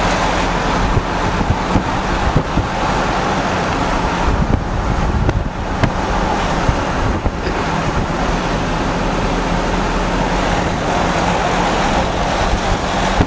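Steady engine and road noise of a moving vehicle heard from on board, with wind on the microphone.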